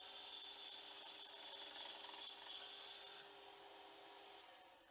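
Bandsaw blade cutting through a dry carob (algarrobo) log: a steady hiss of the blade in the wood over the faint hum of the saw. The hiss drops about three seconds in as the cut finishes.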